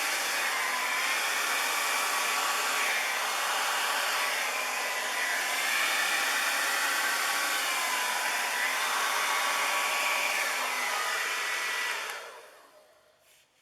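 Hair dryer running steadily, blowing paint across a canvas in a Dutch pour, its motor whine dipping in pitch a couple of times. It is switched off about twelve seconds in and winds down.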